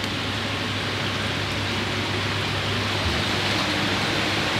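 Steady rushing and splashing of water, as from the filtration and aeration of koi holding tanks, over a low steady hum. A brief low knock about three seconds in.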